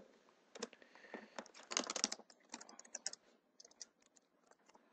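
Computer keyboard typing: a run of faint key clicks, thickest about two seconds in, thinning out and stopping around four seconds in.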